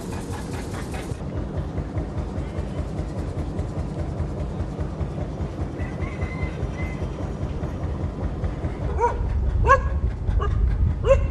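A steady low rumble, with a dog barking several times near the end.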